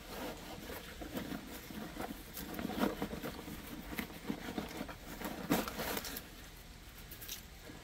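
Hands rummaging in a canvas haversack, cloth and dry birch bark rustling and crinkling irregularly, with a sharper crackle about five and a half seconds in.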